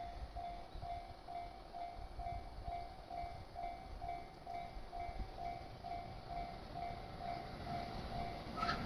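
Japanese railway level crossing warning alarm ringing, an electronic bell tone repeating about two and a half times a second, over a steady low rumble.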